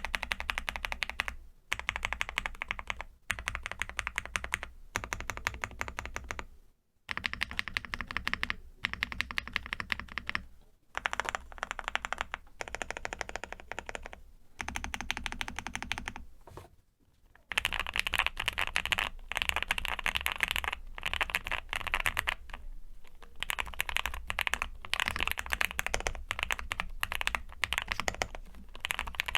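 Fast typing on a QK65 65% custom mechanical keyboard with lubed Gateron Ink linear switches on a POM plate, dampened with foam and silicone; rapid keystrokes in runs broken by a few short pauses.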